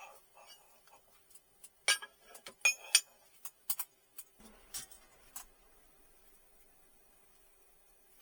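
A scatter of light clicks and clinks, small metal parts or tools being handled, over the first five seconds or so, then quiet with only a faint steady hum.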